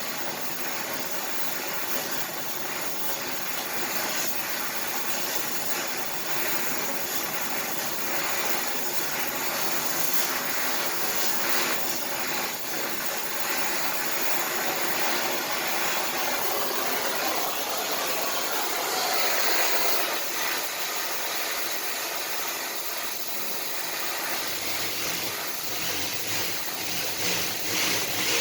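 Electric arc welding: the arc gives a steady, unbroken crackling hiss as a bead is laid.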